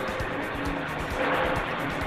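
Cabin noise of an Ikarus IK-166 city bus under way, its MAN D 2866 UM diesel and the road noise running steadily, with music playing over it.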